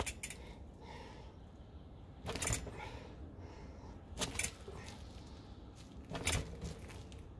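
A mountain bike's front end being bounced on its coil-sprung RockShox Lyrik fork, with the rebound set one click slower. It makes a short rattling clatter of the bike's parts about every two seconds, four times in all, and the second is the loudest.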